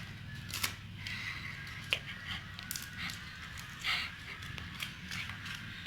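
Dried clay crackling and crunching as it is squeezed and broken by hand, with a few sharp snaps among the small crackles.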